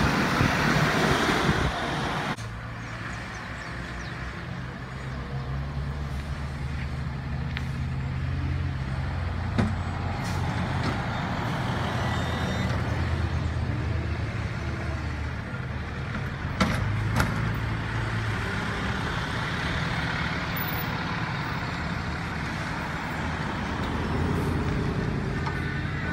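Diesel front-loader garbage truck engines running, a low steady drone that rises and falls a little, with an occasional sharp metal clank. The sound changes abruptly about two seconds in, where a louder stretch of engine and road noise stops.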